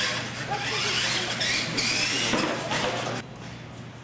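Radio-controlled monster trucks racing: electric motors and gearboxes whining, rising and falling with the throttle, over tyre noise and voices in the hall. The sound drops off sharply about three seconds in.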